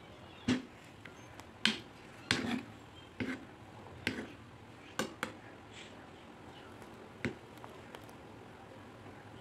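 A metal ladle knocking and clinking against a metal cooking pot while stirring coconut-milk broth: sharp irregular knocks, most in the first five seconds and one more about seven seconds in.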